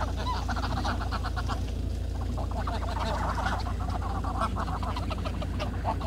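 Flock of greylag geese calling close by: a dense run of short, repeated honking and cackling notes, with a brief lull about two seconds in, over a steady low rumble.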